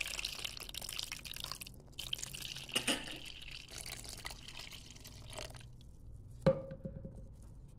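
Warm water pouring into a bowl of flour, splashing and bubbling as it pools, with a short break in the pour. Near the end a single sharp knock, the loudest sound.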